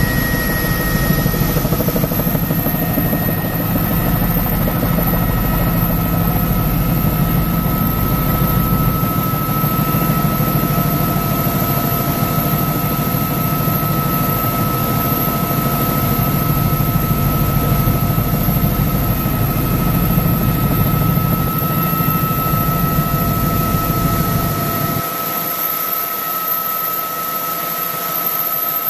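Helicopter cabin noise in flight: the steady running of the engine and rotor, with a steady high whine over a low rumble. Near the end the low rumble falls away.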